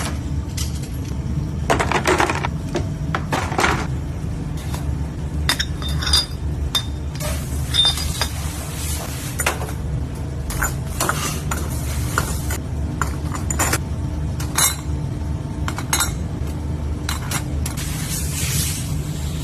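Metal spot light housings clinking and clanking irregularly as they are handled and dipped in powder-coat pre-treatment, over a steady low machinery hum.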